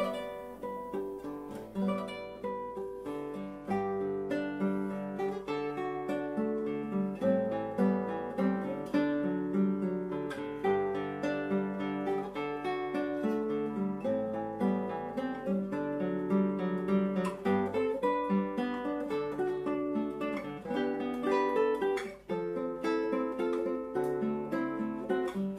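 Background music: a tune played on acoustic guitar, plucked and strummed, beginning sharply at the start.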